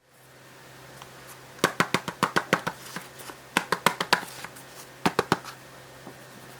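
Hands handling the packaging and plastic parts of a miniature air conditioner during unboxing: three quick clusters of sharp clicks and taps over a low steady hum.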